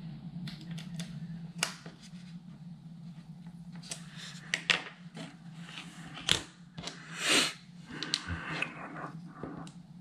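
Small clicks, taps and scrapes of hands handling an amplifier circuit board and its metal case parts, with a small screwdriver working a screw at the start. A louder scrape comes about seven seconds in, over a steady low hum.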